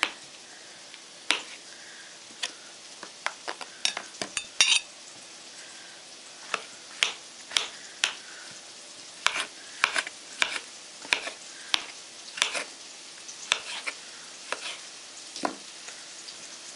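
Kitchen knife slicing champignon mushrooms into strips on a plastic cutting board: sharp, irregular knocks of the blade against the board, usually one or two a second, with a quick flurry about four seconds in. Under them, chopped onion sizzles steadily as it fries in oil.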